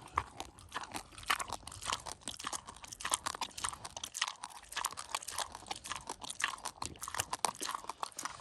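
A pig crunching and chewing a pumpkin, with many quick, irregular crunches.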